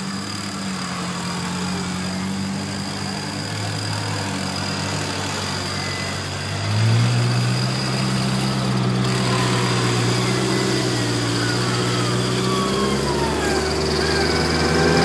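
Off-road 4x4's engine running steadily, then revving higher and louder about seven seconds in, with a thin steady high-pitched whine over it.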